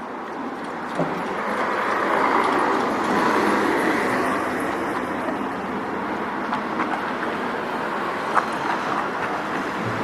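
A vehicle passing: a steady rumble that swells over the first couple of seconds and then eases off a little, with a few light clicks.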